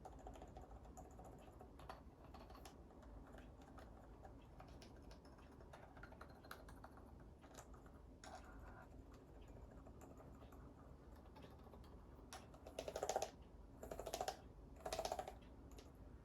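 Typing on a custom keyboard with silent switches: soft, muffled keystrokes, then three short, louder flurries of rapid keystrokes near the end.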